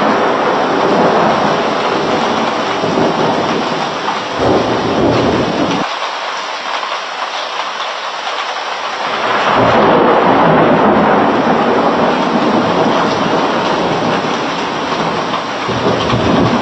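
Heavy rain pouring steadily in a thunderstorm, with rolls of thunder swelling about four seconds in, again around ten seconds and once more near the end.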